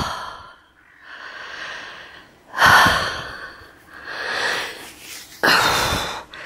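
A woman breathing heavily and close to the microphone, about three breath cycles, each a loud out-breath followed by a softer in-breath.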